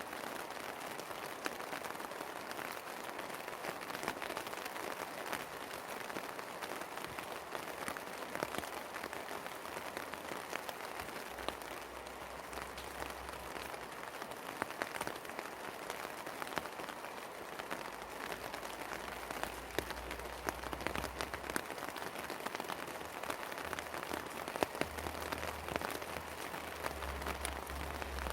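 Steady rain falling, with many separate drops ticking sharply close by over the even hiss of the downpour.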